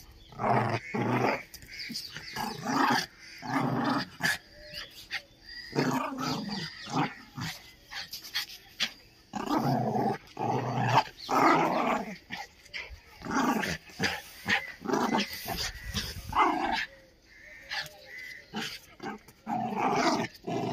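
Two Indian Spitz dogs play-fighting, growling in many short, irregular bursts.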